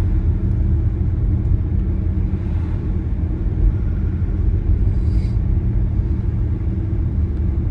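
Steady rumble of a car in motion, heard from inside the cabin: engine drone and road noise, level throughout.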